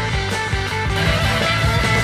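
Background music: a guitar-led pop-rock track with a steady beat.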